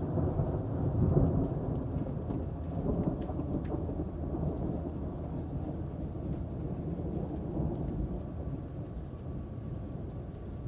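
Rolling thunder rumbling over steady rain, loudest about a second in and then slowly easing off, with scattered raindrop ticks.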